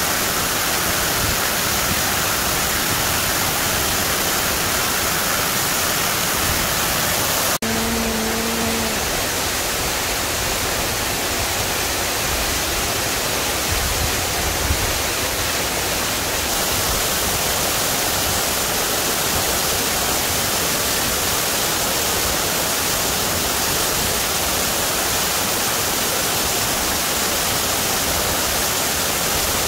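Steady rush of a mountain waterfall and stream, an even hiss of falling water. It breaks off for an instant about eight seconds in, and a brief low steady tone sounds for about a second after the break.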